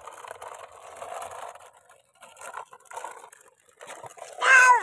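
Hard plastic toy dump truck rolling and scraping over gritty concrete, with uneven scratching and light clicks from its wheels. Just before the end comes a short, loud, high-pitched cry that drops sharply in pitch as it ends.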